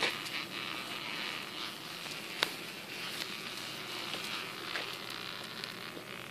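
Wheels of an Odder dog pram rolling along a paved path, a steady rough noise, with a sharp click at the very start and another about two and a half seconds in.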